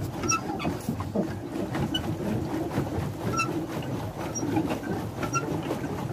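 Steady low rumble of a boat moving on a lake, with a short high squeak repeating about once a second.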